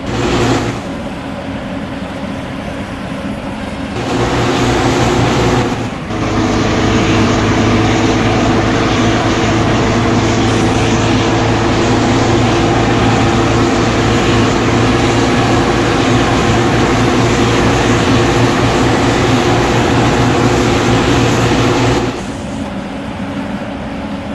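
Large coach bus engine running steadily. It gets suddenly louder about four seconds in and drops back abruptly near the end.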